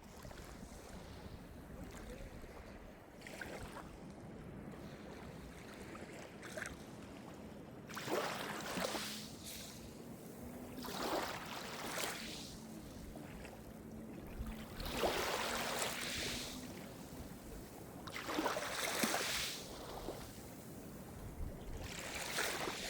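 Calm Mediterranean surf: small waves breaking and washing up the shore in swells every three to four seconds, the first few faint and the later ones fuller, over a steady low rumble.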